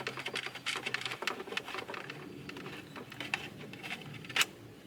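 Rapid, irregular small clicks and rattles of hands twisting a threaded GPS antenna connector onto the back of a car radio and handling its plastic housing, with one sharper click near the end.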